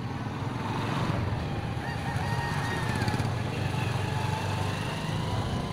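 A rooster crowing in the distance, one drawn-out call near the middle, over a steady low outdoor rumble.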